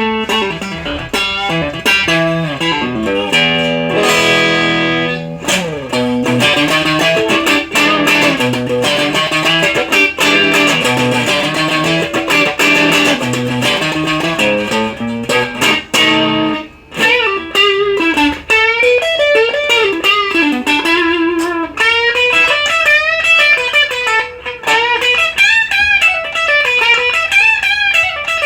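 LTD Strat-style electric guitar with Duncan Designed pickups, played through a Maxon OD-9 overdrive pedal into a Marshall DSL1 amp. It plays busy riffs and chords, breaks briefly about 17 seconds in, then plays single-note lead lines with bends and vibrato.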